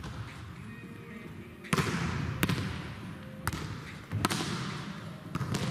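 Volleyballs being struck by hand and smacking the floor in a large sports hall: about six sharp smacks, irregularly spaced, each followed by a long echo.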